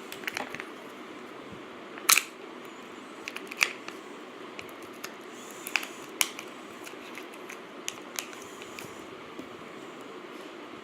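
Sharp, irregular clicks and snaps of small hard-plastic parts being handled, about eight in all, the loudest about two seconds in, over a steady low hum.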